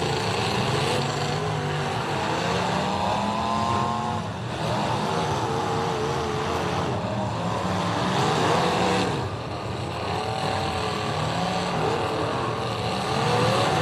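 Several demolition-derby cars' engines revving hard and unevenly, their pitch rising and falling, as the cars push into one another on dirt.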